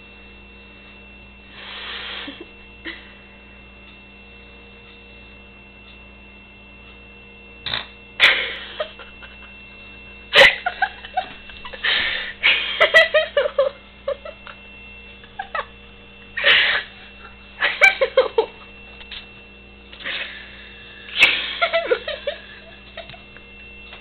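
A cat caterwauling in a string of short, irregular bursts over a steady electrical hum.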